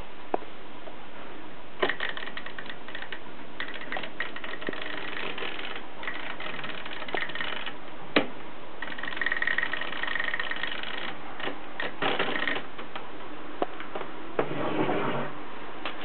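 Mercedes 3 manual typewriter's mechanism being worked by hand: several sharp single clicks and stretches of dense mechanical clattering.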